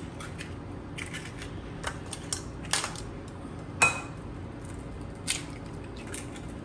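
Eggs being cracked against the rim of a glass mixing bowl, with the shells set down in a small glass dish: a scattering of sharp clicks and taps, the loudest about four seconds in with a brief ring.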